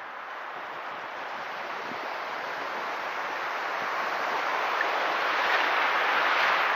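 Shallow surf washing up a sandy beach at the water's edge: a steady rush that swells to its loudest near the end as a breaking wave sweeps in around the microphone.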